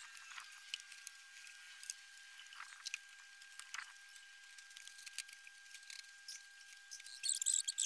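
Faint scattered clicks and crunches as someone moves about and handles things on a gravel bed, with a faint steady high hum. About seven seconds in comes a denser burst of crackling crunches.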